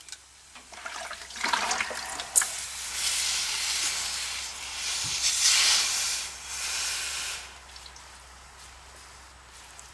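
Freshly brazed copper joint hissing and sizzling as a wet rag is pressed onto it, the water flashing to steam in several surges for about seven seconds, then dying away. A single sharp tick comes about two seconds in.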